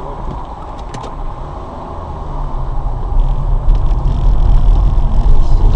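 Car engine and road noise heard from inside the cabin as the car pulls away and gathers speed; the low rumble grows much louder from about two seconds in.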